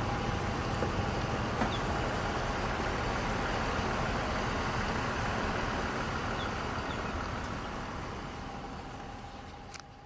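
A steady engine running, with a faint steady whine above it, fading out over the last few seconds.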